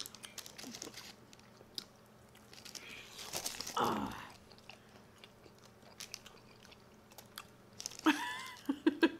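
Close-up chewing and biting of bone-in fried chicken wings, with scattered sharp wet clicks and smacks. There is a louder stretch of eating sound about three and a half seconds in, and a short voiced murmur near the end.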